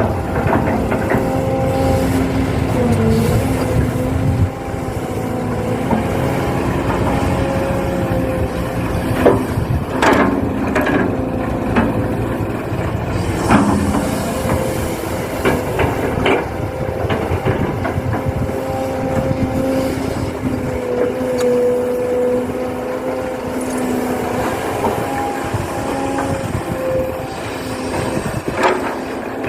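Small electric motors and gearboxes of radio-controlled construction models whining steadily, their pitch wavering slightly, with scattered short clicks and knocks.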